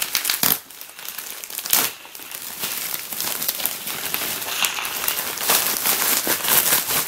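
A plastic poly mailer bag being torn open and handled: crinkling, crackling plastic throughout, with louder bursts about half a second and just under two seconds in.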